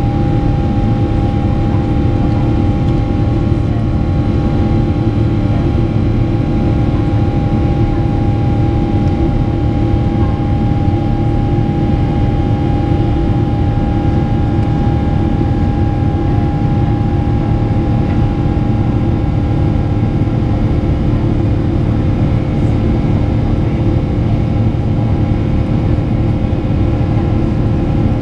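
GE90-115B turbofan of a Boeing 777-300ER heard from inside the cabin in flight: a loud, steady drone with several steady whining tones held over it.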